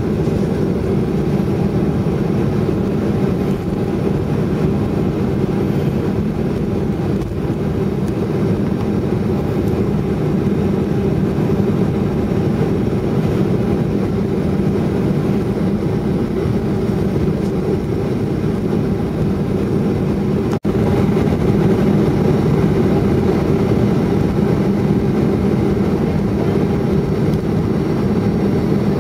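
Airliner's jet engines running at taxi power, heard inside the passenger cabin as a steady low drone with a few held hum tones. It breaks off for a moment about two-thirds of the way through and comes back slightly louder.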